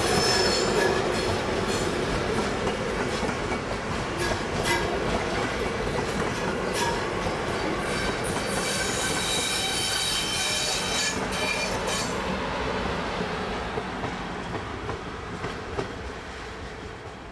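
Passenger train of DB regional coaches rolling past a platform: wheels clicking over rail joints and points, with a high wheel squeal about a second in and again from about eight to twelve seconds. The sound fades as the train moves away.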